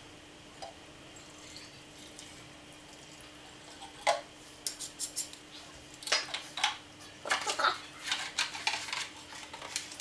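Light plastic clicks and clatters from about four seconds in, coming thicker toward the end: a gas leaf blower's fuel tank cap and small fuel can being handled during refuelling.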